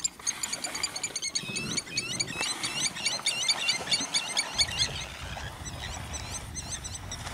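Many small birds chirping in quick succession, a dense chatter of short rising chirps. A low rumble joins about halfway through.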